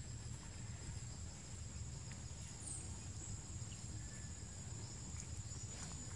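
Steady high-pitched insect drone, like a cricket or cicada, over a low rumble, with a few faint ticks.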